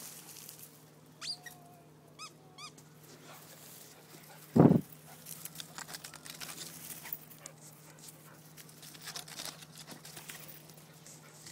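Pit bull puppy whining in a few short, high, pitched whimpers, then a single loud short thud about halfway through, followed by scratching and rustling as it jumps up against a tree trunk.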